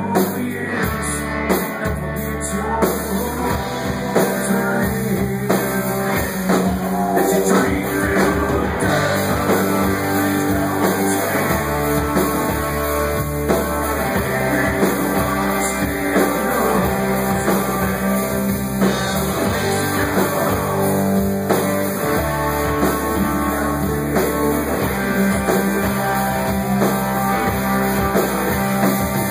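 Live country band playing: drums, electric guitars and acoustic guitar in a loud continuous song.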